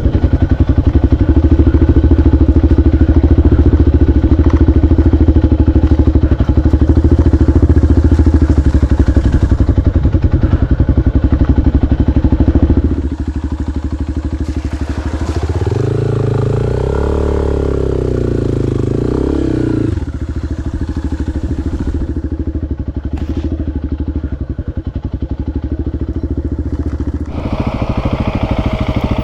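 Adventure motorcycle engine running on a rough dirt track. It is loud for about the first half, then quieter, with a rise and fall in engine pitch in the middle, and picks up again near the end.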